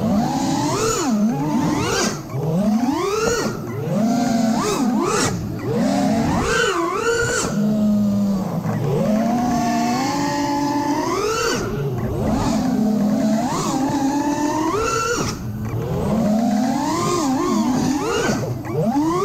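Brushless motors and propellers of a 5-inch FPV quadcopter (T-Motor F60 Pro IV, 1950 kV) whining in flight. The pitch swoops up and down constantly with the throttle, and it dips briefly in loudness a few times. Heard close up from the drone itself.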